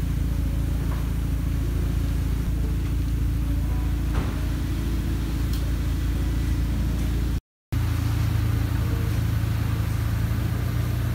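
Tenth-generation Honda Civic sedan's engine idling steadily with a low, even hum. The sound drops out briefly about seven seconds in, then the idle resumes.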